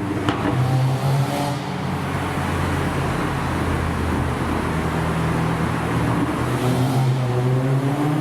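Volkswagen Golf R's turbocharged four-cylinder engine accelerating, heard onboard. About a third of a second in there is a sharp crack as the DSG gearbox upshifts; the engine then pulls on at lower revs and climbs in pitch again near the end.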